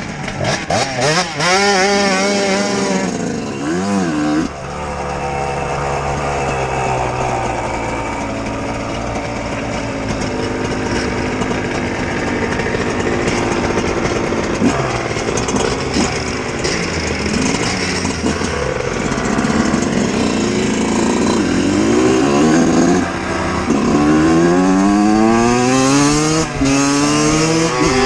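Two-stroke dirt bike engine being ridden, its pitch rising and falling with the throttle and climbing steadily over the last few seconds.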